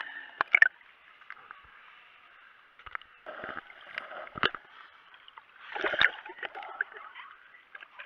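Sea water sloshing and splashing around a camera held at the waterline, heard muffled, with a few sharp knocks: two close together about half a second in, and others around four and a half and six seconds in.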